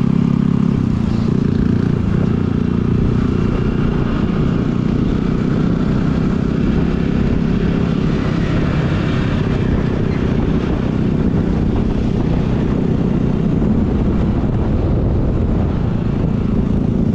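Sport motorcycle running steadily at road speed, heard from the rider's seat with heavy wind noise on the microphone.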